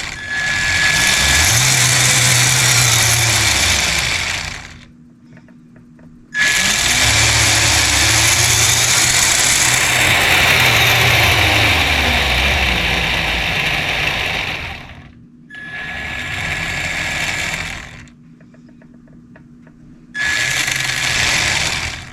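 Traxxas RC truck's electric motor and geared drivetrain running in four bursts of throttle, speeding up and slowing down, the third burst quieter: a test run showing the rewired motor works.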